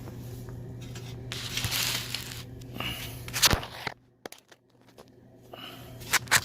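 Hand-work noises of metal bolts and washers being handled and fitted: rustling, with a few short sharp clicks, one about halfway through and two close together near the end.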